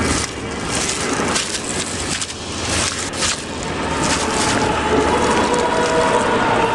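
Crackling and rustling as a newly hatched lark chick works free of its eggshell in a dry grass nest: a string of short, sharp crackles over the first few seconds, then steadier rustling.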